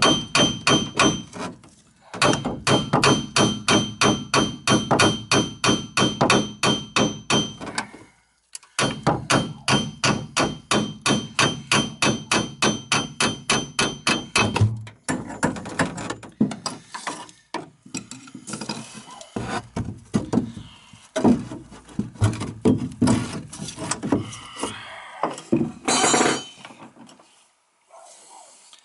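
Hammer striking a screwdriver held against an old, seized tub drain fitting: long runs of rapid metallic taps at about four a second with a ringing tone. About halfway through, these give way to slower, irregular knocks and scraping as the fitting is worked loose.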